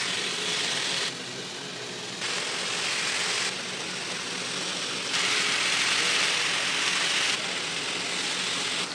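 Bacon strips sizzling on a hot flat-top griddle, a steady hiss over a low hum, its level jumping up or down abruptly every second or two.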